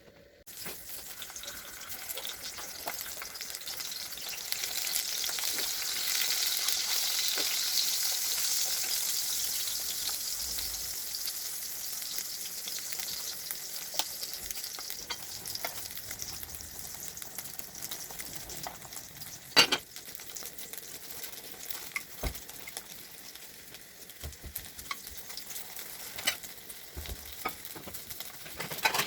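Food sizzling as it fries in hot oil. The sizzle builds over the first few seconds, is loudest around a quarter of the way in, then slowly dies down. Scattered light clicks and one sharp knock about two-thirds of the way through sound like a utensil against the pan.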